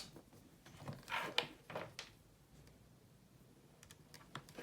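Faint clicks and short scrapes from handling a phone charging cable and plug, a few in the first two seconds and again near the end, with a quiet stretch between.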